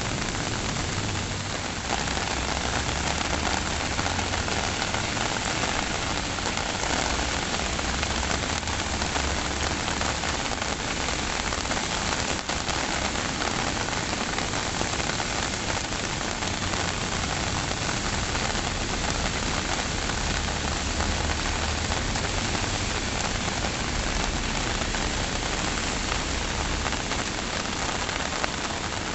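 Steady, heavy rainfall, an even dense hiss of rain falling on surfaces with a low rumble underneath.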